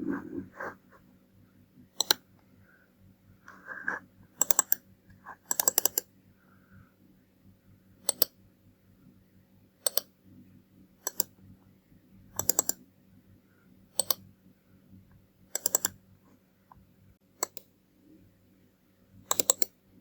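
Computer mouse buttons clicking: single clicks and quick double clicks, spaced a second or two apart, over a faint steady hum.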